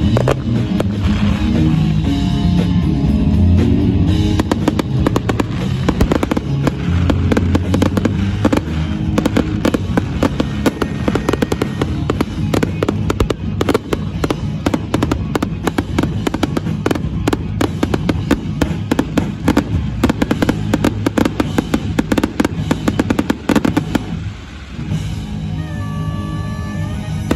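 Fireworks going off in a dense, rapid run of bangs and crackles over music. The barrage thins out about four seconds before the end, leaving the music.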